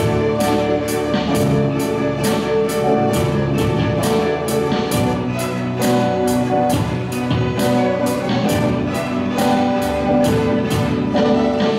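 School string ensemble of violins playing together with electric guitar and electric bass. A steady beat of sharp cymbal-like strikes runs through it at about three a second.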